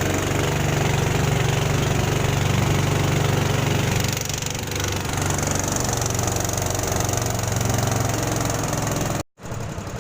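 A vehicle's engine running steadily, its note dipping briefly about four seconds in, then cutting off abruptly near the end.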